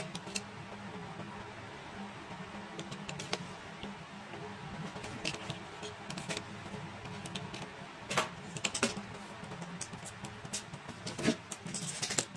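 Cardboard mailer being opened by hand: a utility knife slitting packing tape, with scattered clicks and taps on the cardboard, the clearest about eight and eleven seconds in. Quiet background music underneath.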